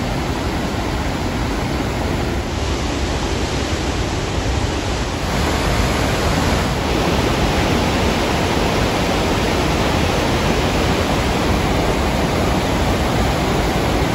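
Victoria Falls: the Zambezi River pouring over the falls and through the rapids at the lip, a loud steady rush of water that steps up a little in loudness about five seconds in.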